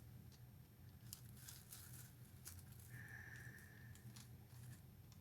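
Near silence with faint scattered clicks and light rustles of craft materials being handled while gluing, and a faint steady high tone lasting about a second around three seconds in.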